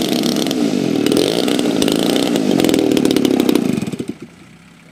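Two DLE-30 single-cylinder two-stroke petrol engines on RC Sbach aerobatic planes running together on the ground, their slightly different speeds weaving through each other. The engine sound cuts off about four seconds in as the engines are shut down.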